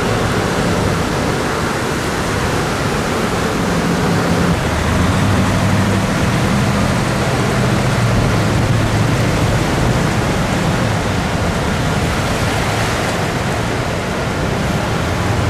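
Steady rushing and sloshing of floodwater as vehicles drive through the flooded road, with a tractor-trailer's diesel engine humming low through the middle.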